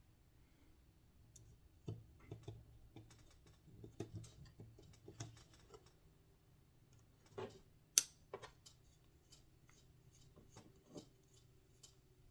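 Faint, irregular clicks and taps of small screws, nuts and a driver being handled while fastening block nuts to a model helicopter frame, with one sharper click about eight seconds in.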